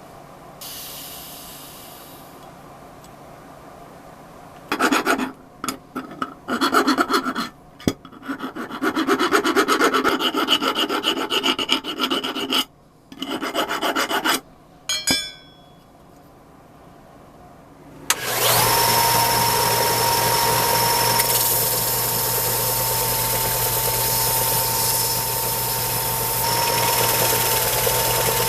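Rubbing strokes of hand abrasive work come in irregular bursts. About two-thirds of the way in, a small electric power tool starts up and runs steadily with a constant whine.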